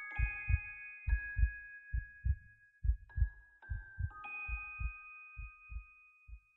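Soundtrack music: a soft low double-thump pulse like a heartbeat, about one pair a second, with a few chime-like notes that ring on over it. It stops just at the end.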